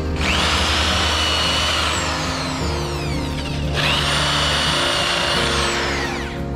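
Handheld electric drill boring holes through a thick wooden hull plank. The motor whines up to speed, runs steady, then spins down, and does this twice.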